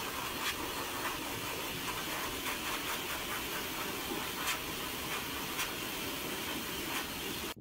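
Shower water spraying onto a dog in a tiled shower stall, a steady hiss with a few faint clicks.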